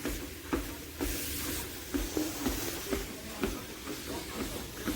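SupeRun walking pad under-desk treadmill running, with a steady thud about twice a second over a low hum and hiss.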